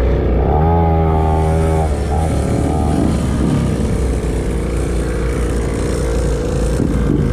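Small two-stroke mini dirt bike engine running under the rider, with wind noise on the microphone. A higher steady tone rises about half a second in and holds for over a second before dropping away.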